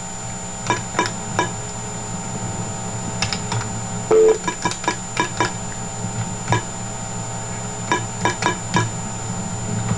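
Desk telephone being dialed: a run of short, irregularly spaced keypad tones over a steady low hum.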